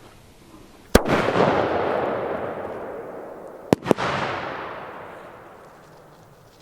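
Small fireworks going off: one sharp bang about a second in, then two quick bangs near the middle, each followed by a rushing, crackly tail that fades away over a few seconds.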